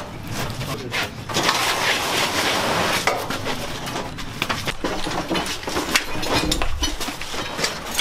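Irregular metallic clattering and knocking of junk being hauled out, with a portable generator on its steel wheeled frame being dragged and rolled over a concrete floor.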